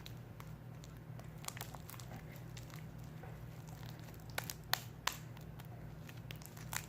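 Fresh, sticky glue slime being mixed by hand, making scattered small wet clicks and crackles, over a steady low hum.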